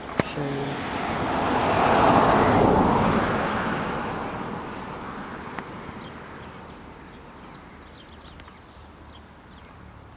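A car passing on a road: a broad rush of tyre and engine noise that swells over about two seconds, then slowly fades away. A single sharp click sounds just before it.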